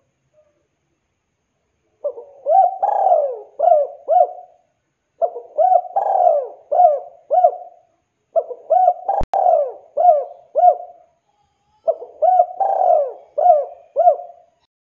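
Spotted dove (tekukur) cooing: four phrases of several coos each, a few seconds apart, each phrase ending in quicker short notes. A single sharp click about nine seconds in.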